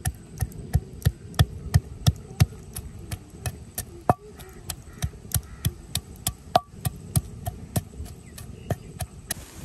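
Garlic and ginger pounded into a paste with a pestle: steady thuds, about three a second, with two sharper ringing knocks about four and six and a half seconds in.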